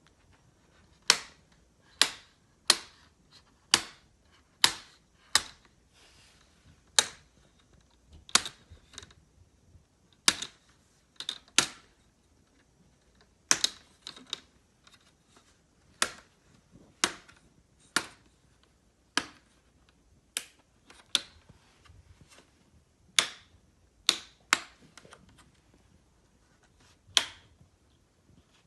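Plastic retaining clips of a Lenovo IdeaPad 330 17-inch laptop's screen bezel snapping loose one after another as the back of a steel spoon pries the bezel off. Sharp clicks come about once a second, some in quick pairs.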